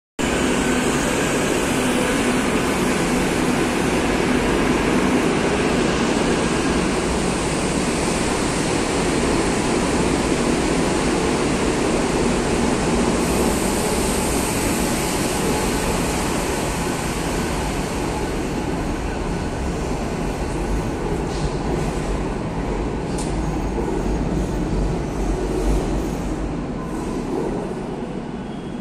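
Madrid Metro series 2000B train pulling out of the platform and running into the tunnel: a steady rumble of wheels and running gear that slowly fades, with a few sharp clicks near the end.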